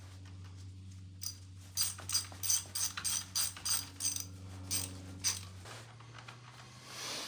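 Manual JB flaring tool ratcheting as it forms a flare on copper refrigerant line: a run of sharp clicks, about three a second, stopping about five seconds in.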